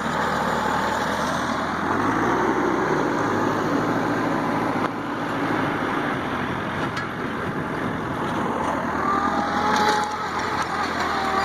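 Tractor engine running steadily, its pitch shifting briefly about two seconds in.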